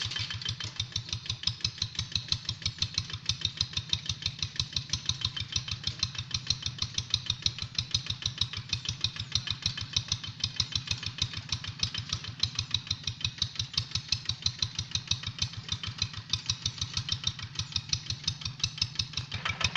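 Kubota single-cylinder diesel engine of a Quick Boxer 1000 two-wheel hand tractor running steadily, with an even putting beat of about five strokes a second.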